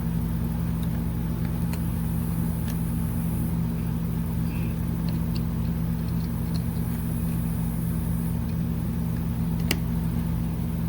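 Steady mechanical hum from a running motor, with a few light clicks of parts being handled and one sharper click near the end.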